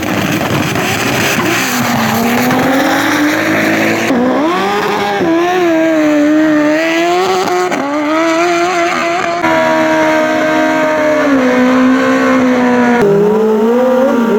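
Drag-race car engines running at high revs, their pitch wavering up and down as the throttle is worked. The sound changes abruptly a few times, as if cut between several cars.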